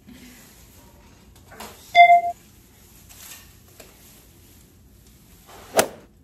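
A short electronic beep, one steady tone lasting about a third of a second, about two seconds in. Near the end there is a single sharp knock.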